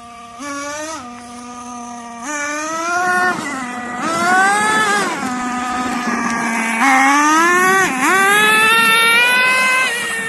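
Radio-controlled truck's small gas engine buzzing at a high pitch, revving up and easing off several times as it drives, with a brief dip in revs about eight seconds in.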